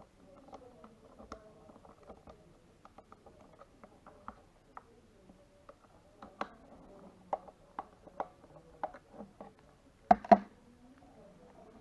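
Irregular small clicks and taps from hands working on a wireless computer mouse, sparse at first and more frequent in the second half, with a louder pair of knocks about ten seconds in.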